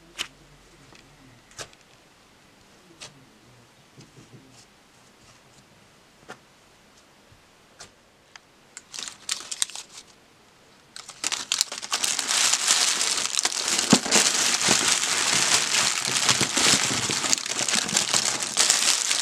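Plastic candy and chewing-gum wrappers crinkling as hands scoop and sift through a box full of individually wrapped sweets: a few scattered crinkles begin around the middle, then dense, loud crinkling runs on through the second half. Before that, only a few faint isolated clicks come from a thick, doughy slime being pulled apart.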